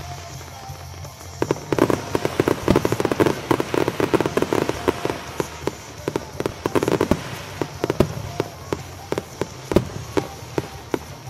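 Fireworks display going off: a rapid run of sharp pops and crackles with scattered louder bangs, thickest from about two seconds in and again around seven seconds.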